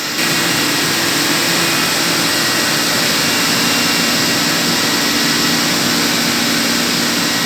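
Loud, steady hum and hiss of running chiller machinery. The noise steps up suddenly just after the start, then holds.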